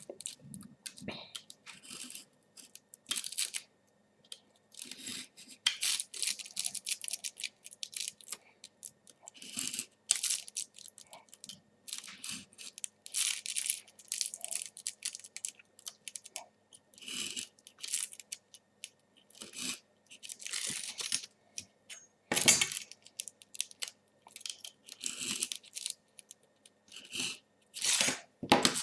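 Utility knife slicing through Velcro hook-and-loop fabric to open the slots between punched holes, in many short, irregular scratchy cutting strokes.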